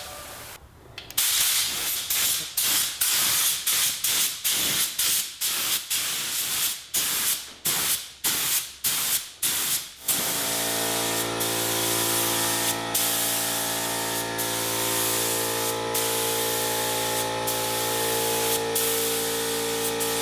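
Air spray gun spraying paint: short hissing bursts about twice a second, then from about ten seconds in one continuous hiss with a steady hum underneath.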